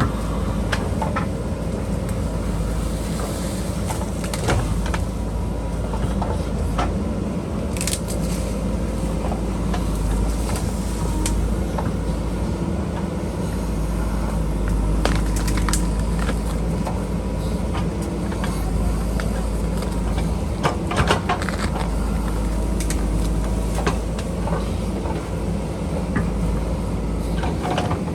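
JCB backhoe loader's diesel engine running steadily under load, with scattered sharp clicks and knocks throughout.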